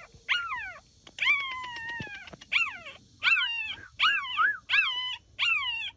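A young puppy yelping loudly and repeatedly: about seven high-pitched calls, each falling in pitch, one after another every half second to a second.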